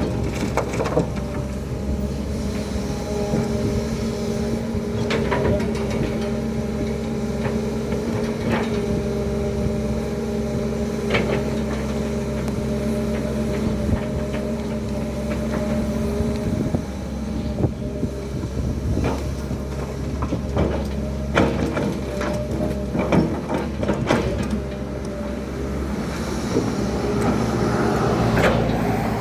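Hydraulic excavator's diesel engine running steadily as it works, with repeated sharp clanks and knocks from the machine and its load, clustering past the middle.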